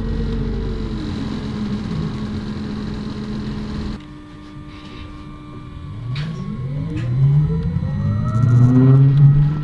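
City bus heard from inside while riding: its drivetrain whine falls as it slows, the sound drops suddenly about four seconds in, then rising whines and engine noise build as it accelerates, loudest near the end.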